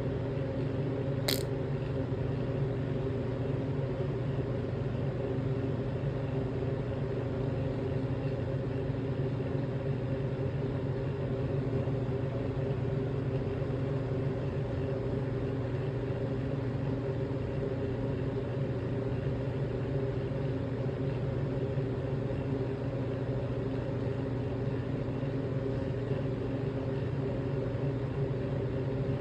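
A steady, unchanging low hum with several even tones, and a single sharp click about a second in.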